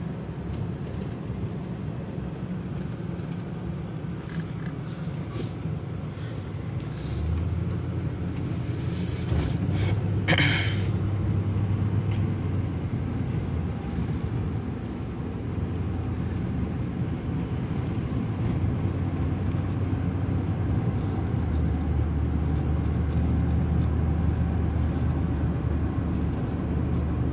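A car's engine and road noise heard from inside the cabin while driving. The engine note rises about seven seconds in as the car speeds up, and a brief high-pitched sound comes about ten seconds in.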